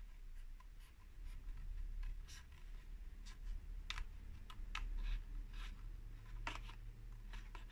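Small scissors snipping through paper in short cuts around a curve: a run of light, irregular snips, the sharpest about four and six and a half seconds in.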